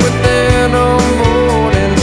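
Background pop-rock music with a steady drum beat and a sustained melody line.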